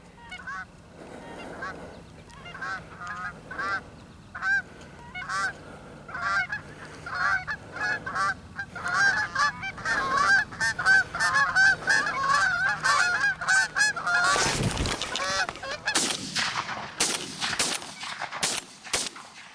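A flock of Canada geese honking, the calls growing thicker and louder as they come in, then a shotgun volley: one loud blast about fourteen and a half seconds in, followed by several more quick shots while the geese keep honking.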